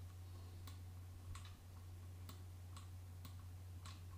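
About six faint, separate clicks at uneven intervals from a computer mouse and keyboard being worked at a desk, over a low steady hum.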